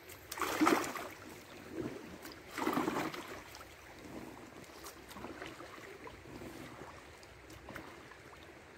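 Kayak paddle strokes splashing in river water: two louder splashes in the first three seconds, then softer strokes that fade as the kayak moves away, over the steady rush of the river.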